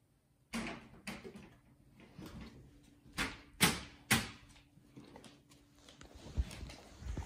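A handful of sharp knocks and clatters, the loudest three close together about three to four seconds in, then two dull thumps near the end.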